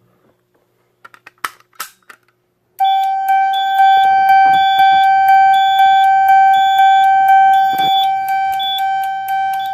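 A few clicks, then a fire alarm signal sounding about three seconds in: a loud steady ringing tone with a regular pulse about twice a second, fading out near the end.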